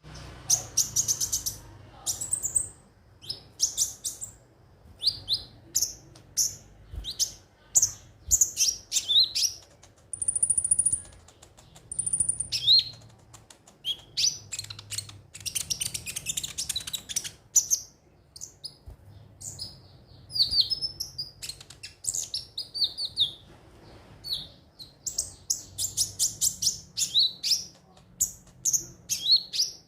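Konin (kolibri ninja) sunbird singing: rapid bursts of high, sharp chirps and trills in short phrases every second or two, with a couple of thin, drawn-out high whistles about a third of the way in.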